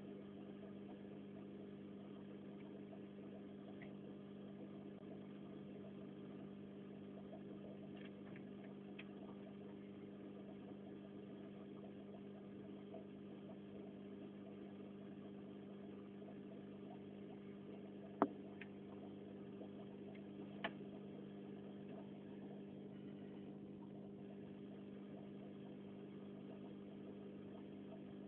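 A steady low hum with several pitches, broken by two sharp clicks a couple of seconds apart past the middle, the first the loudest, and a few fainter ticks earlier.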